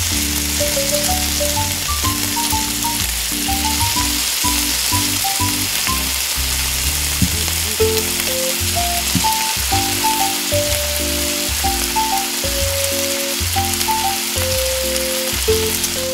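Hot oil sizzling steadily as battered squid pieces deep-fry in a small wok, with light background music playing a melody over it.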